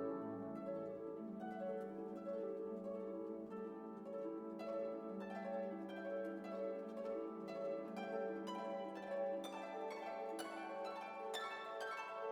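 Background music: soft plucked strings, harp-like and pizzicato, over held lower notes, the plucked notes growing busier and brighter after about five seconds.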